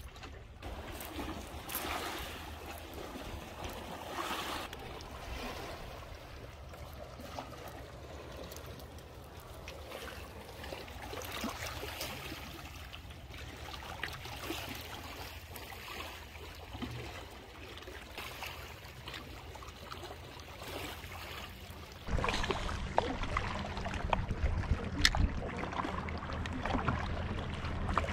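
Small waves lapping and trickling against a rocky lakeshore, with scattered light clicks; about three-quarters of the way through it suddenly becomes louder, with a heavier low rumble.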